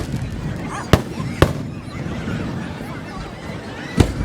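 Fireworks display shells bursting, played at double speed: sharp bangs at the start, about a second in, half a second later, and again near the end, over a steady background of crowd noise.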